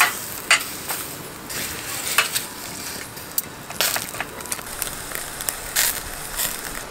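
Raw chicken pieces sizzling as they are laid on the hot wire mesh of a charcoal grill, with metal tongs clicking against the grate several times.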